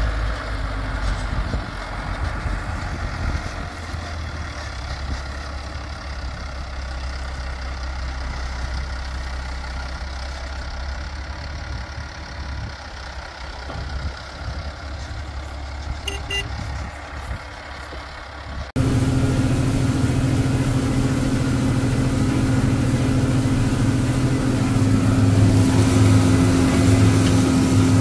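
A low, uneven tractor-engine rumble for about the first nineteen seconds, then a sudden cut to a louder, steady tractor engine working under load: a Deutz-Fahr Agrotron 6205 pulling a disc stubble cultivator, heard from its cab.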